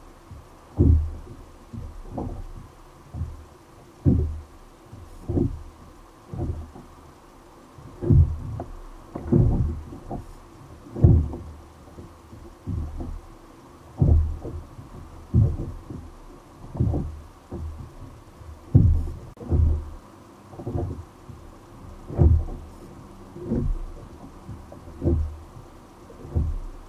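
Water knocking against a fishing kayak's hull in low, dull thumps, about one a second, some stronger than others.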